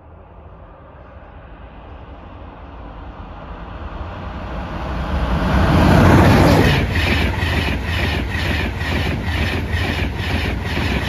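Electric locomotive-hauled passenger train approaching and passing at speed over a level crossing. A rumble builds and peaks as the locomotive goes by about six seconds in, then the coaches' wheels clack over the track at about two beats a second.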